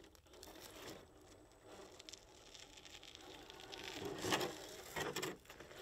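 Axial SCX10 III JT Gladiator RC rock crawler scraping and tipping over on rock, with faint scuffing and clicks. Two louder clatters come in the last two seconds.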